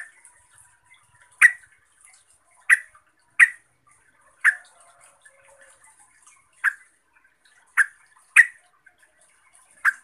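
Yellow-vented bulbul giving short, sharp call notes, about eight of them at uneven intervals.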